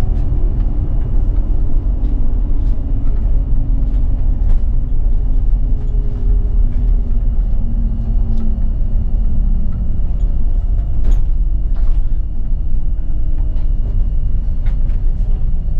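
City bus under way: a steady low engine and road rumble, with the engine note drifting up and down, and scattered short clicks and rattles, the sharpest about 11 seconds in.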